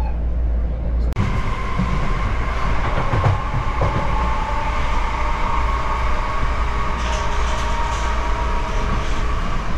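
Electric commuter train running, heard inside the passenger carriage: a steady rumble of wheels on rails with a steady high whine over it. The sound shifts abruptly about a second in, when the whine comes in.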